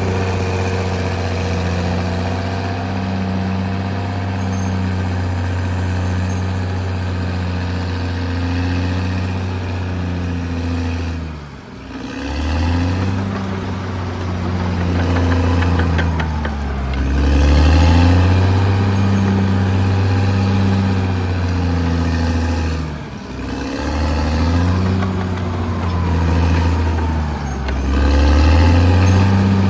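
Caterpillar D6R XL bulldozer's diesel engine running steadily under work. Twice, a little before halfway and again about three-quarters through, its speed briefly drops and then climbs back up.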